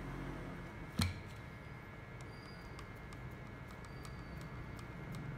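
Screwdriver prying at the seam of a Crazybaby speaker's plastic housing: one sharp click about a second in, then a few faint ticks of the blade against the plastic.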